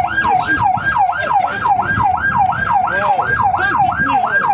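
Fire engine siren wailing in a fast yelp, its pitch sweeping up and down about three to four times a second, with voices murmuring underneath.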